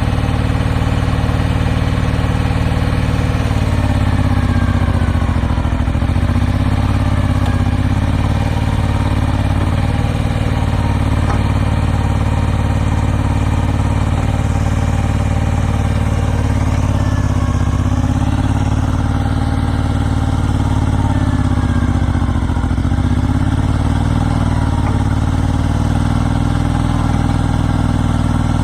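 Kubota L39 tractor-loader-backhoe's diesel engine running steadily. Its pitch sags slightly and recovers twice.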